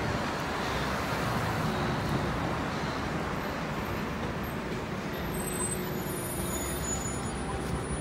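Road traffic passing at a steady level: cars and a city bus driving by.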